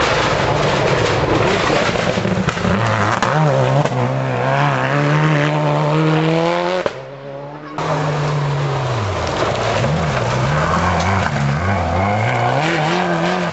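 Rally car engine revving hard on a gravel stage, its pitch climbing and falling repeatedly with the throttle. The sound drops away briefly about seven seconds in, then the engine comes back revving up and down.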